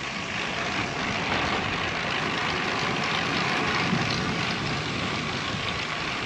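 Steady rush of wind on the microphone of a bike-mounted action camera, mixed with road and tyre noise, while a road bike is ridden along a street.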